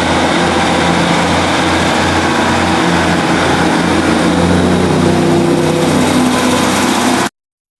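Northern Rail Class 150 Sprinter diesel multiple unit's underfloor diesel engine running with a steady drone, rising slightly in pitch about five seconds in. The sound cuts off suddenly near the end.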